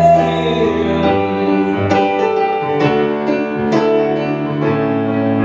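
Live song: a singer holds the last word of a line, then sustained keyboard chords carry on through an instrumental gap, with new chords struck about every second.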